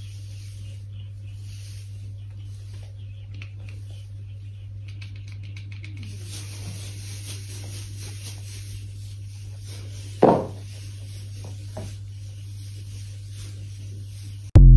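Cats chattering, the soft crackling, clicking jaw chatter that cats make while staring at prey out of reach, faint over a steady low hum. There is one short, louder sound about ten seconds in, and a loud jingle starts right at the end.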